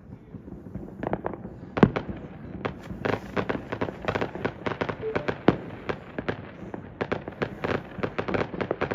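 Fireworks going off: after a quieter first second, a rapid, uneven barrage of sharp bangs and crackles, with one especially loud bang about two seconds in.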